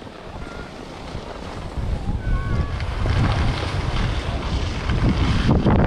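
Wind rushing over the microphone, a rough low rumble that grows louder about two seconds in.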